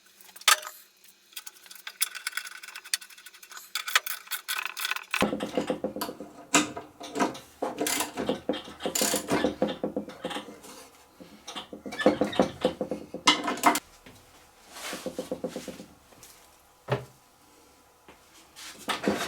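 Small metal parts and tools clinking, tapping and scraping as they are handled, in irregular sharp clicks that grow busier after about five seconds.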